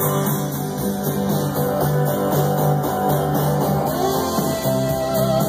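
Recorded guitar music playing through a Sansui 4000 stereo receiver and JBL J2050 speakers.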